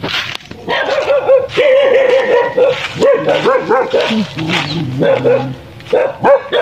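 A dog barking in runs of quick, high yaps, with a lower, quieter stretch in the middle and a few more yaps near the end.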